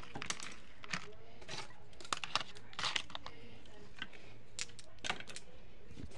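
Scattered light clicks and clacks of small plastic toy pieces being handled, with brief rustling of paper and cardboard as toys are moved about.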